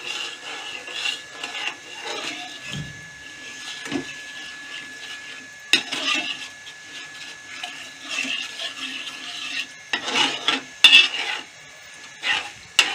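A spoon stirring tamarind water and jaggery in a cooking pan on the gas, scraping and rubbing along the pan. It knocks against the pan once about six seconds in and several times near the end.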